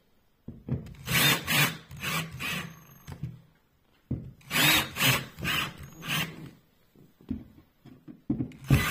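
Cordless drill-driver running in short bursts as it drives screws down through sealant into a caravan wall panel, in two runs with a brief pause between them.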